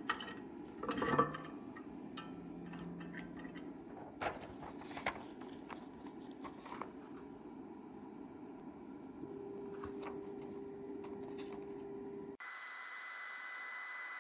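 Light knocks and rubbing as the resin vat is lifted out of an Elegoo Saturn resin printer and a sheet of paper is laid on its screen. Then the printer's Z-axis stepper motor lowers the build plate onto the paper with a quiet steady hum for about three seconds. Near the end the sound switches abruptly to a steady hiss with a thin high whine.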